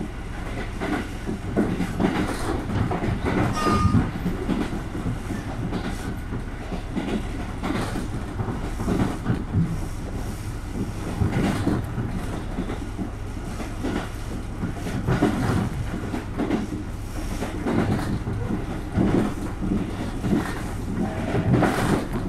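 A KiHa 200 series diesel railcar running at speed, heard from inside the carriage: a steady rumble from the engine and running gear, with the wheels clicking over rail joints. A short high squeal comes about four seconds in.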